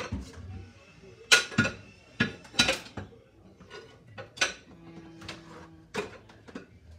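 Dishes clinking and clattering as plates and bowls are handled and set down: a string of sharp, irregular knocks, the loudest in the first half.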